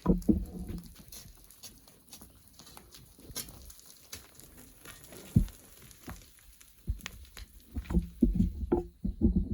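Irregular dull thuds and knocks with loose sand and grit pattering down: hand tools digging black volcanic sand from a cliff face. The knocks come thicker in the last couple of seconds.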